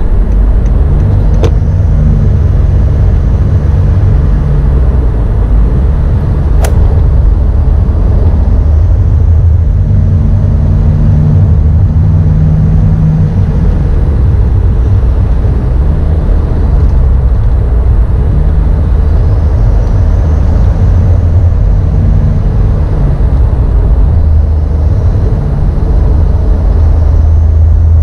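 Toyota 2KD-FTV four-cylinder turbodiesel engine running under way at cruising speed, a steady low drone whose note swells and eases a little as the throttle changes. Two sharp clicks come within the first seven seconds.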